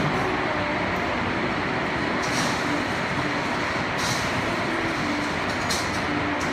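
Heavy rain falling steadily, an even hiss, with three brief sharper splashes about two, four and nearly six seconds in.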